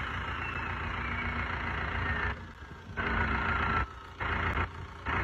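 Big-turbo 1,900 cc diesel engine on a stand idling, its turbocharger's whistle slowly falling in pitch as it spools down. The sound cuts out briefly three times in the second half.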